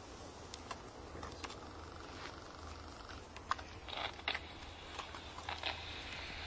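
Plastic bag rustling, with scattered light clicks and knocks of small handheld gadgets being sorted through it.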